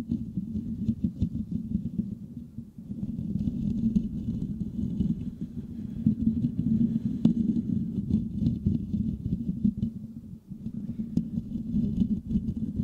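Fingertips and nails scratching and rubbing rapidly across the metal mesh grille of a Blue Yeti USB condenser microphone: a dense, bassy scratching right on the capsule that eases off briefly twice.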